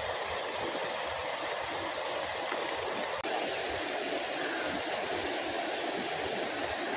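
Steady rushing of a stream or waterfall, an even roar of water.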